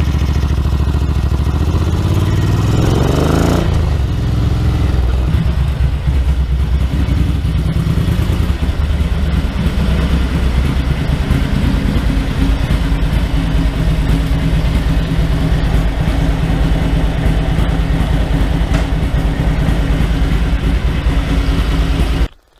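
Ducati 900SS bevel-drive air-cooled V-twin engine pulling up through the revs with a rising pitch for the first few seconds, then dropping back. From about six seconds in it runs steadily at idle.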